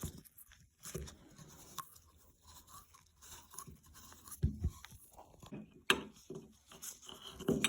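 Scattered small clicks, knocks and scrapes of faucet parts being handled and fitted back in place, with a dull thump about four and a half seconds in and a sharp click near six seconds.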